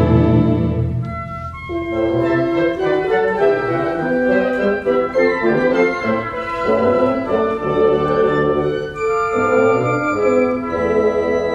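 Symphony orchestra playing: a loud held chord with brass dies away in the first second or so, then a lighter passage of moving notes takes over.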